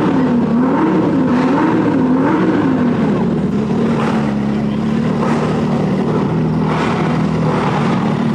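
Car engine and exhaust blipping the throttle several times in quick succession, then running at a steady low speed.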